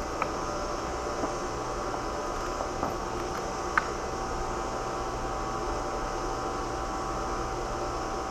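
Steady background hum, with a few faint clicks about a second into it and again near the middle.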